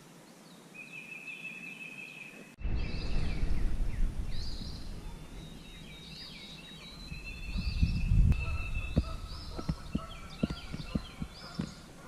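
Dawn chorus of songbirds in spring woods: many short, repeated whistled and chirped song phrases, with a long steady high whistle among them. About two and a half seconds in, a louder low rumbling noise sets in under the birdsong. Near the end comes a run of light clicks.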